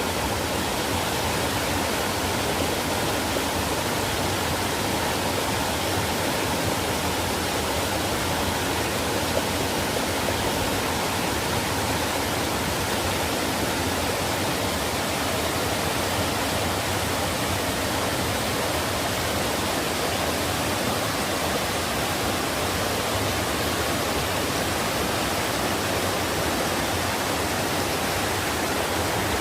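Valley stream water rushing steadily, an even, unbroken wash of water noise.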